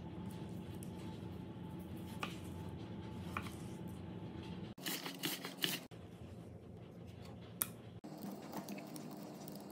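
Quiet food-prep handling over a low steady hum: a raw rockfish fillet being handled and sliced with a chef's knife on a plastic cutting board, with a short run of light knife clicks about five seconds in. Near the end, a soft papery rustle and small clicks of a clove's dry skin being peeled off by hand.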